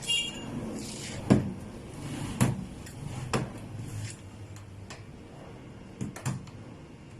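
Scattered sharp knocks of metal parts and tools being handled, about five over several seconds, two of them close together near the end, after a short ringing metallic clink at the start.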